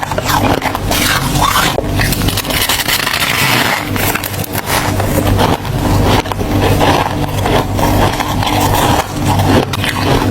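Ice being chewed and crunched close to the microphone: a continuous, dense run of crackling crunches.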